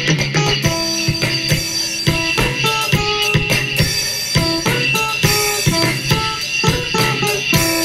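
Background music with drums keeping a steady beat under stepping melodic notes.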